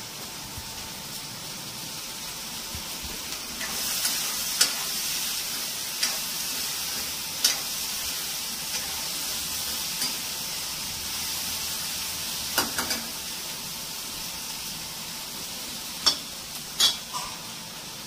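Chopped mixed vegetables sizzling in oil in a cooking pan, the hiss growing louder about four seconds in. About half a dozen sharp metal clinks against the pan come from stirring.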